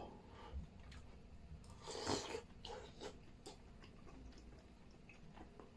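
Faint eating sounds: a man chewing a meal of wontons in soup and toasted shaobing, with scattered small clicks and one short, louder noisy sound about two seconds in.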